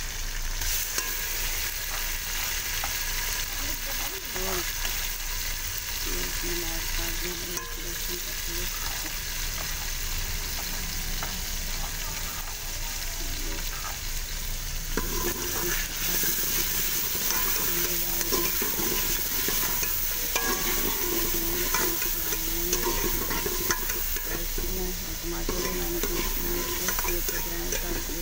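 Chicken, onions, tomatoes and garlic paste sizzling steadily in hot oil in a steel pot, stirred with a steel ladle that scrapes and clicks against the pot: the masala being fried down after the tomatoes go in.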